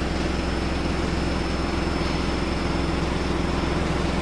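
Steady machine hum with an even hiss and a faint high whine, constant throughout: background noise of the kind a fan or air conditioner makes.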